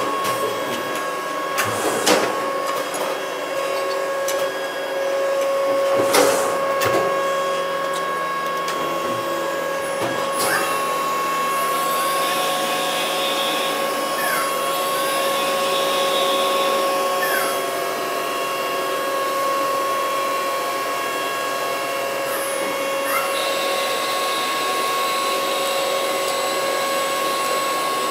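CNC lathe running while it turns a chess rook, the spindle and drives giving a steady whine, with sharp knocks about two and six seconds in.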